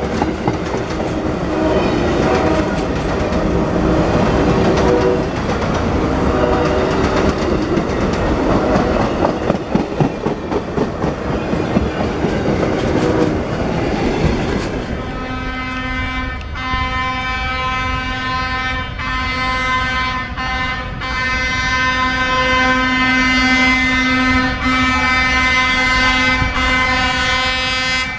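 An Amtrak passenger train's cars roll past, their wheels rumbling and clattering over the rail joints. About halfway through the rolling noise fades, and a train horn sounds in long steady blasts with short breaks between them.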